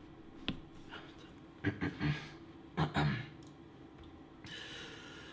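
Handling noises: a sharp click about half a second in, then two short clusters of knocks and rustles around two and three seconds in, over a low steady hum.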